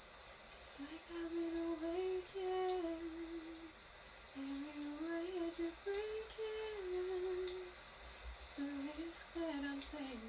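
A woman humming a slow melody in three phrases, holding notes and gliding between them, with short pauses between phrases.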